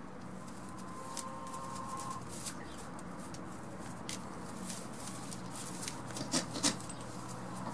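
Faint bird call held for about a second, over light rustling and knocks of goat kids' hooves on straw and boards, with two sharper knocks close together near the end.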